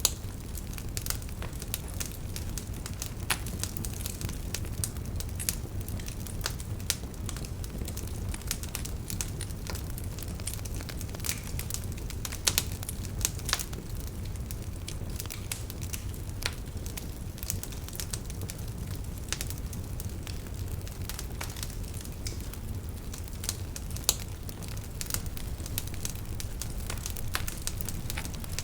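Wood fire burning in a fireplace, with a steady low rumble and frequent irregular crackles and pops.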